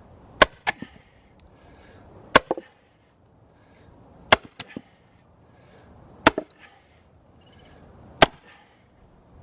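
Steel sledgehammer striking a steel splitting wedge in a firewood round: five loud, sharp metal-on-metal hits about two seconds apart, most followed a moment later by a lighter tap.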